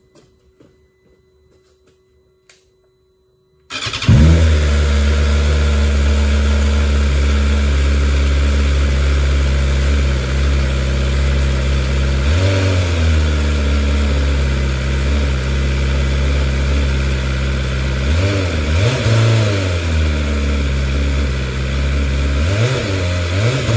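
A 2021 BMW S1000RR's inline-four engine on its stock exhaust starts up about four seconds in. It then idles steadily, with several short throttle blips later on that briefly raise the revs.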